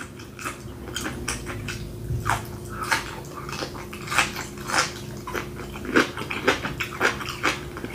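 Close-miked biting and chewing of grilled asparagus: a run of short, irregular crunches and wet mouth clicks.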